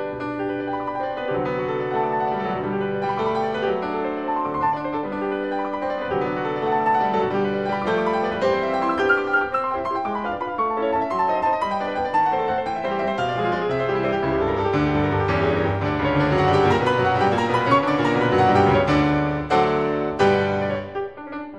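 Background piano music, a steady flow of notes that grows fuller and louder in the second half.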